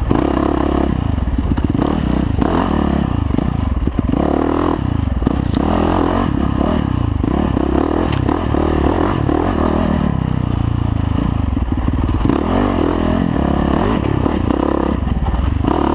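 2010 Yamaha YZ450F dirt bike's single-cylinder four-stroke engine running close up as it is ridden over rough desert singletrack, revving up and down with the throttle. Clatter and scrapes from rocks and brush hitting the bike run through it.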